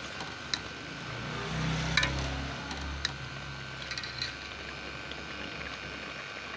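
Metal spoon stirring simmering tomatoes in a metal pot, clinking against the pot a few times over a steady hiss. A low hum swells and fades between about one and four seconds in.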